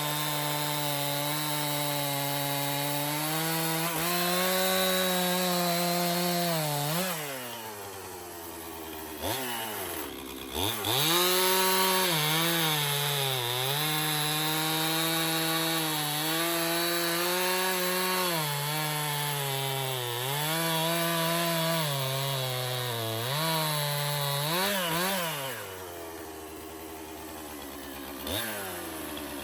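Stihl gasoline chainsaw cutting through logs, its engine note wavering under load as it bogs and recovers in the cut. It drops to idle twice, about a third of the way in and near the end, then revs back up into the next cut.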